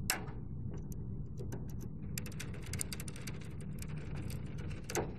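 Screwdriver tightening wires into the screw terminal block of a 12 V DC CCTV power supply box: a run of small, quick clicks and ticks from the metal terminals, thickest in the second half. There is a sharper click just after the start and another near the end.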